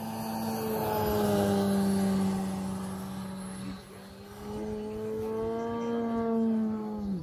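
Electric motor and propeller of a large RC aerobatic plane running in flight: a steady, buzzy drone that wavers slightly in pitch, dips in level about four seconds in, swells again, and falls away sharply in pitch at the very end.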